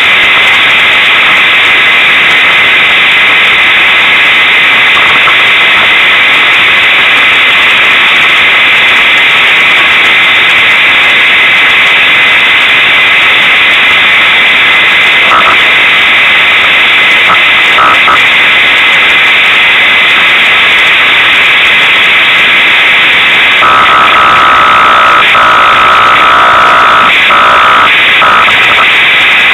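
Unimog 404 S trial truck's engine and drivetrain heard from on board as a loud, distorted rush of noise that overloads the microphone, turning harsher with an added whine about six seconds before the end.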